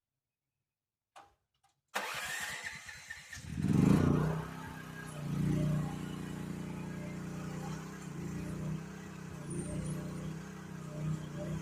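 GroundHog KH14G mini excavator's engine cranking about two seconds in, catching with a loud surge, then running steadily with some rise and fall in speed.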